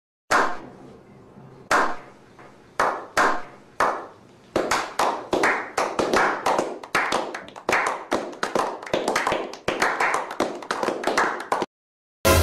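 A small group of men clapping: a slow clap that begins with single claps a second or so apart and builds into quick, steady applause, then stops abruptly near the end.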